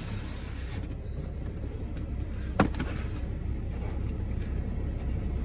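Steady low drone in a semi truck's cab while a cardboard CB radio box is opened, with one short, sharp squeak about halfway through.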